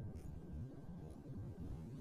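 Faint low rumbling drone from interview audio slowed down by extreme time-stretching, smeared so that no words can be made out.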